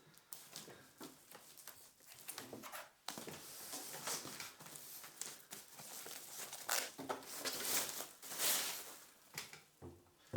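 Packaging crinkling and rustling as a boxed speaker is unpacked, with irregular crackles and tearing sounds that grow busier from about three seconds in.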